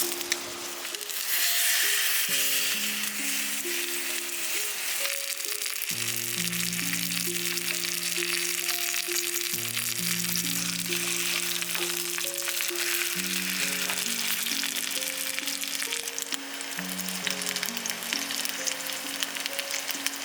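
Food sizzling in a pan over a campfire, a steady frying hiss that gets louder about a second in. Soft background music of slow, held low notes plays under it.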